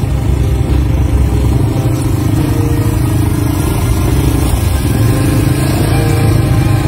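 Quad bike (ATV) engines running as several of the bikes drive past close by, one after another.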